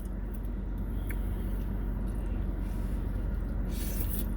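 Steady low mechanical hum, with a brief hissing rustle near the end.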